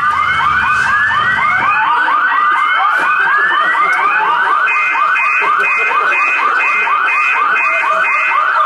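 Loud electronic alarm signal: a fast warbling run of falling chirps, about five a second, layered with a rising sweep about once a second. About halfway through, a higher pulsing beep joins in at about two and a half pulses a second.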